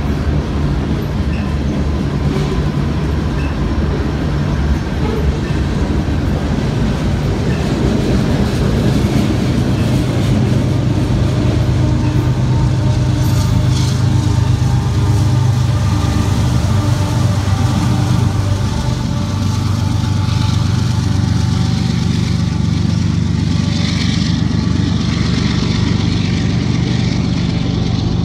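Freight train of boxcars rolling past, with steady wheel and car noise. Partway through, a diesel locomotive in the train goes by, and its low engine drone swells.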